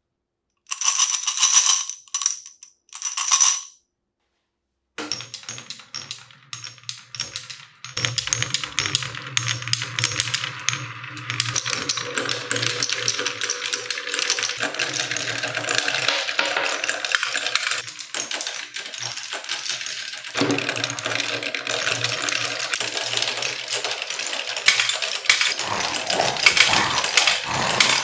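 Glass marbles rolling and clattering along wooden marble-run tracks, a dense continuous rattle of clicks that builds up about five seconds in. Before that come two short ringing clinks.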